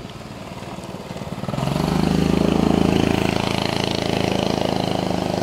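A motor engine running steadily, growing louder about a second and a half in and then holding.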